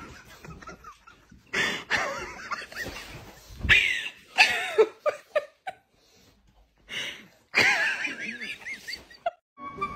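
A pug whining and squealing excitedly in several bouts of wavering, high cries with short pauses between, the longest near the end.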